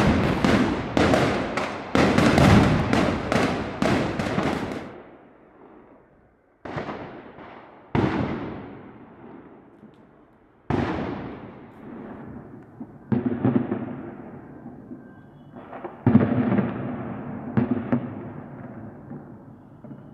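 Firecrackers going off: a fast string of bangs for the first few seconds, then single loud bangs every two to three seconds, each followed by a long echoing rumble that fades away.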